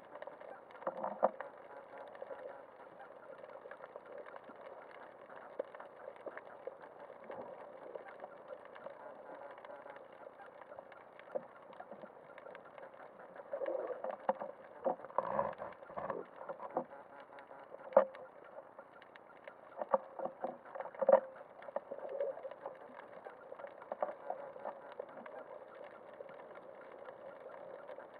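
Muffled underwater sound through an action camera's waterproof housing on a speargun: a steady hush of moving water with scattered sharp clicks and knocks, busiest around the middle.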